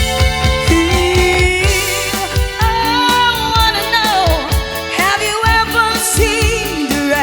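Band music from a cover of a pop-rock song: a steady drum and bass beat of about two strokes a second under a lead melody that glides and wavers in pitch.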